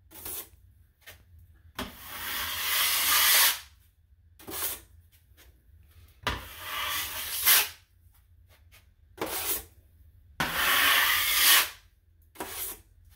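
A 12-inch drywall taping knife scraping wet joint compound across the wall, smoothing a coat over a butt joint with heavy pressure on the outer edge. There are three long scraping strokes with a few short scrapes between them.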